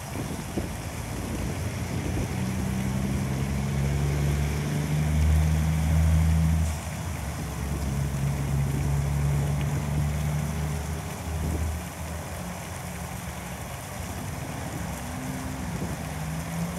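Low motor drone with a steady pitched hum, growing louder toward the middle, dropping off suddenly about seven seconds in, then rising again and easing near twelve seconds.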